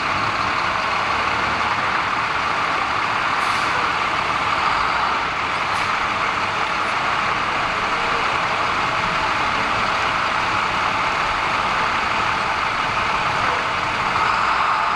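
Steady noise of a heavy vehicle's engine idling, with an even hiss over it and no change throughout.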